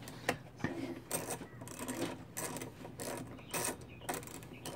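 Ratchet wrench clicking in short, irregular runs while turning out the kickstand pivot bolt on a GY6 scooter engine's CVT cover.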